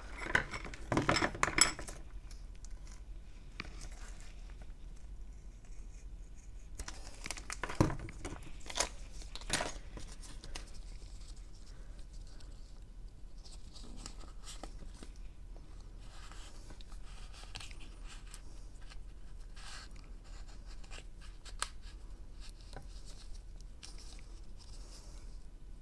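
Heat-shrink tubing being cut to length and handled at a workbench: bursts of snipping and rustling in the first two seconds and again around eight to ten seconds in, with faint scattered clicks of handling in between.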